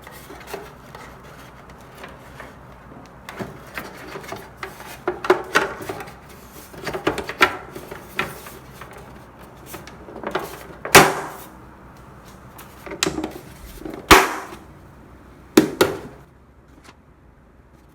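Irregular knocks, clicks and rattles of parts being handled and fitted as an espresso machine is reassembled, with two sharp, loud knocks in the second half.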